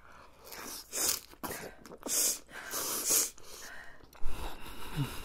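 Sharp hissing breaths sucked in and blown out through the mouth, 'sss' and 'ha-a', three strong ones in the first three seconds, from mouths burning with spicy tteokbokki, along with chewing. A single dull thump about four seconds in.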